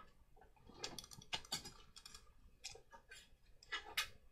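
A handful of faint, irregular clicks and taps from small objects being handled and set down on a desk, the sharpest about four seconds in.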